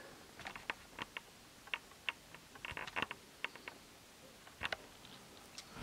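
Faint handling noise from a red knit-mesh sneaker being held and turned in the hands: a string of soft, irregular clicks and light rustles, bunched together about three seconds in.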